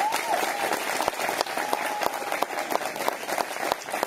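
Crowd of guests applauding, dense steady clapping with a few voices cheering over it.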